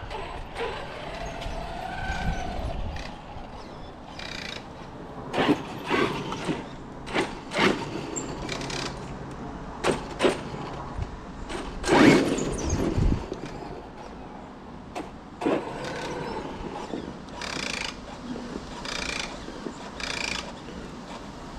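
Electric RC car running in short bursts of throttle, with sharp clatters and knocks between them.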